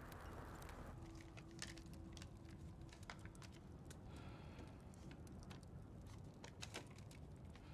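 Quiet room tone with faint, irregular small clicks and rustles of a paper letter being handled. A faint hiss stops about a second in.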